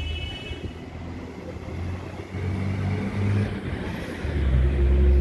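Street traffic: motor vehicle engines running as cars pass, with an engine drone that grows louder about four seconds in.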